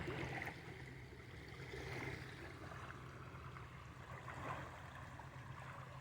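Faint, steady rush of a creek's flowing water.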